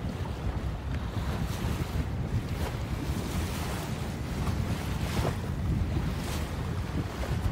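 Wind rumbling on the microphone over a steady rush of water, aboard a sailboat under sail in a fresh breeze, with a few faint splashes.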